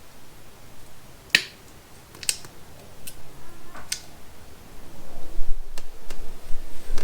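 A handful of sharp clicks and snaps from crimping and handling small butt connectors on thin wire, the loudest about a second and a half in.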